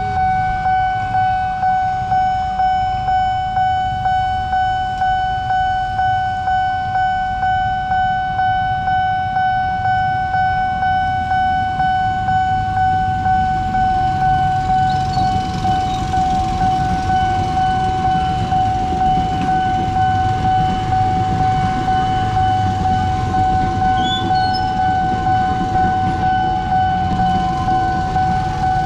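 Railroad level-crossing warning bell ringing steadily in an even, repeating pulse, with electric trains rumbling past through the second half.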